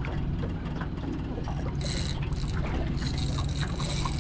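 Small outboard motor idling steadily on an aluminium boat, with water sloshing against the hull and scattered faint clicks from a spinning reel being worked.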